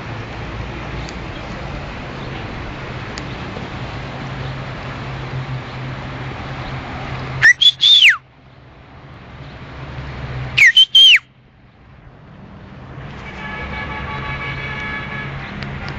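Two loud, piercing whistles about three seconds apart, each gliding up and then down, over a steady background rush. A fainter held tone with several pitches comes in near the end.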